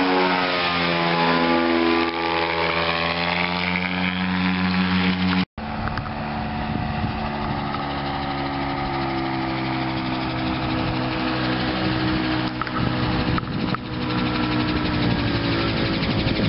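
Gyroplane's propeller engine droning as the aircraft flies low overhead, its pitch shifting as it passes. After a brief cut about five seconds in, the engine drones steadily with a slowly falling pitch as the gyroplane comes in low over the runway.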